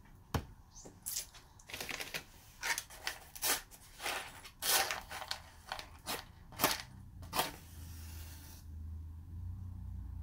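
Handling noise of short, sharp clicks and rustles, then near the end a brief scratchy hiss as a wooden match is struck and flares.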